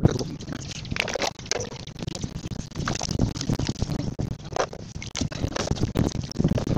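Hands working Indian olives in water inside a metal pot: irregular splashing and sloshing, with the olives knocking and scraping against the pot's sides.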